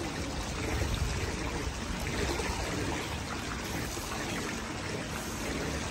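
Steady rush of running water, an even hiss with no distinct events.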